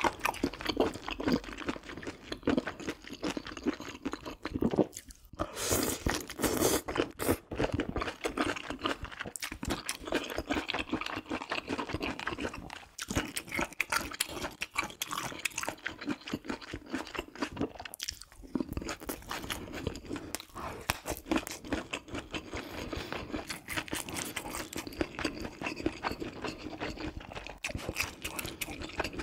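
Close-miked chewing of spicy stir-fried octopus: a dense run of small clicks and smacks that drops off briefly a few times.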